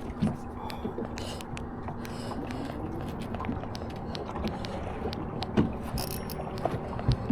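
Van Staal VR150 spinning reel being cranked against a hooked tarpon, its gears whirring with scattered sharp clicks and knocks over a faint steady hum.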